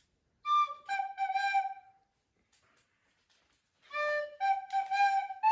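A child playing a simple Christmas melody on a flute, one clear note at a time. He plays a short phrase, stops for about two seconds, then starts another phrase.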